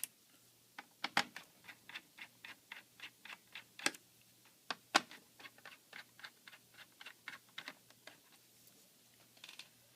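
Small screwdriver turning out laptop screws: a steady run of light clicks, about four a second, with a few sharper ones, thinning out near the end.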